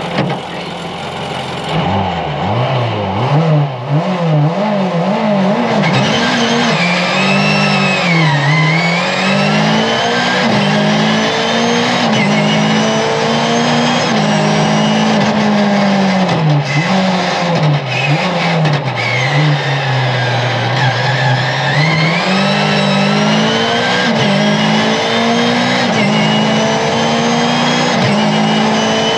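Mercedes 190E 2.3-16's 2.3-litre sixteen-valve four-cylinder engine, heard from inside the car. It is driven hard at full throttle, and the revs climb and fall again and again with gear changes and lifts, with a high whine following the revs.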